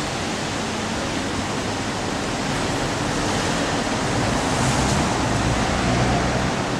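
Steady city street traffic noise, with a low vehicle rumble that swells about four to six seconds in.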